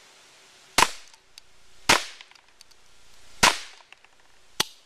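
A dollar-store 8-shot cap gun converted to fire 6mm airsoft BBs, set off by its ring caps: four sharp shots about a second or so apart, each with a brief ring-out, the last one shorter and quieter.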